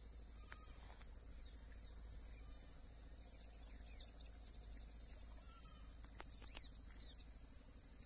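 Rural evening ambience: a steady high-pitched insect drone with scattered short bird chirps.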